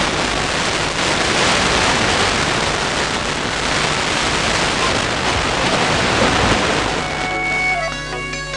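Distant FM broadcast on 67.72 MHz (OIRT band) received by sporadic-E skip on an XDR-F1HD tuner: dense hiss of a weak, fading signal with music faintly underneath. About seven seconds in, the hiss thins and the music comes through clearer.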